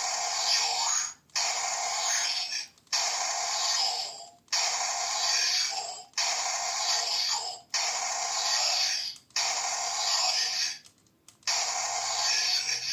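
A Kamen Rider Ark-One memory key toy's small speaker plays its finisher sound effect and voice line again and again as the button is pressed repeatedly. The sound comes in short blocks of a bit over a second, about nine of them, with brief gaps between. It sounds thin, with no bass.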